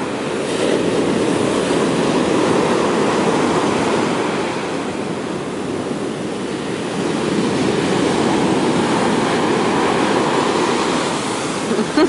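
Big surf breaking and washing up a sandy beach: a continuous rush of water that swells louder about a second in, eases in the middle, and builds again as the next waves come in.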